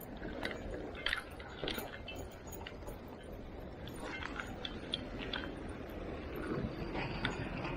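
Irregular clicks, taps and scrapes of fishing gear being handled on the rocks, over a low, steady wash of surf.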